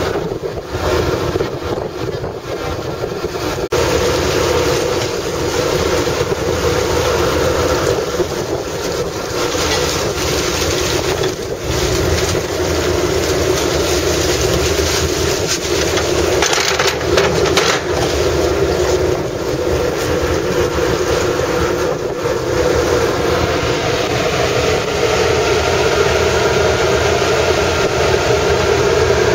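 Small passenger ferry's engine running steadily while under way, with wind gusting across the microphone.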